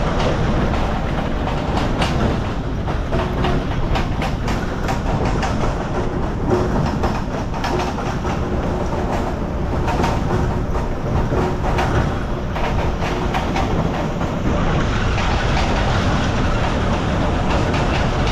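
Vehicle towing a loaded trailer over rough field ground: a steady driving rumble with constant rattling and clanking from the trailer and the tools in it.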